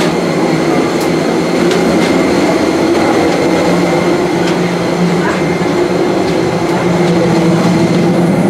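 Steady loud drone with a constant high whine from a parked Airbus A320's running auxiliary power unit, heard from the apron beside the aircraft.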